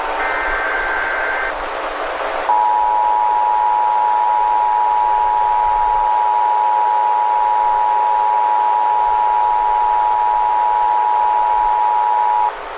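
Emergency Alert System tones over a steady hiss. First comes the last burst of the SAME digital header, a rapid warbling data tone that lasts about a second and a half. After a short gap, the two-tone EAS attention signal sounds steadily for about ten seconds and cuts off sharply near the end.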